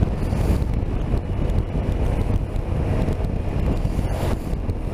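Wind rushing over the microphone while riding a BMW R 1250 RT motorcycle, a steady low rumble with the bike's engine and road noise mixed in.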